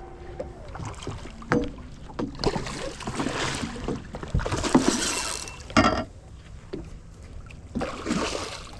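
Irregular bursts of water splashing, with a few sharp knocks against a fishing kayak, as a hooked snook thrashes at the surface.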